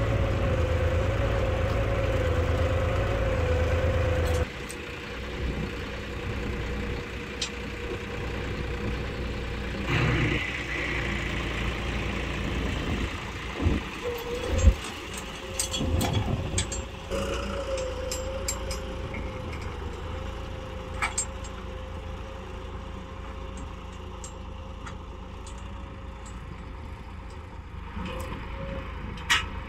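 John Deere 5405 tractor's three-cylinder diesel engine running steadily under load while pulling a single-tine subsoiler through the ground. It is loud and close at first, then suddenly quieter and more distant after about four seconds, with a few knocks and clicks in between.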